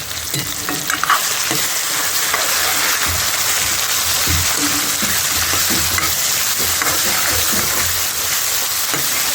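Chicken gizzards sizzling steadily in a hot pan on the stove, with a few soft knocks from stirring.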